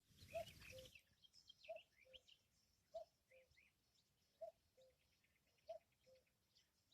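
Common cuckoo calling its two-note 'cu-koo', the second note lower, five times at an even pace about every 1.3 seconds. Smaller birds chirp faintly in the background, and there is a short rustle in the first second.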